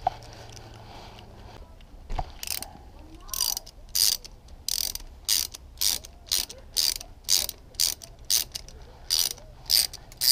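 Socket ratchet wrench clicking in short bursts, about two a second, as it backs a spark plug out of an outboard motor's cylinder head.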